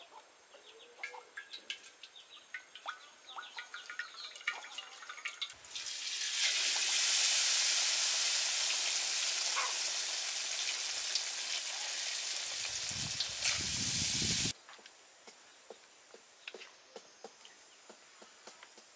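Climbing perch (Anabas testudineus) deep-frying in hot oil in a wok: a loud, steady sizzle sets in about six seconds in and cuts off abruptly, with faint scattered ticks before and after it.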